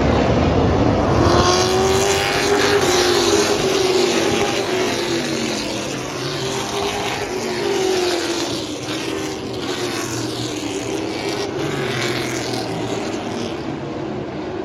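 Several race cars running laps on a short paved oval, their engines passing close by. The engine notes rise and fall as the cars come past, loudest in the first few seconds and easing off a little toward the end.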